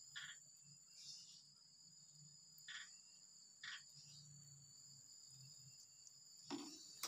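Near silence: faint room tone with a steady high-pitched whine and a low hum, broken by four short soft rustles.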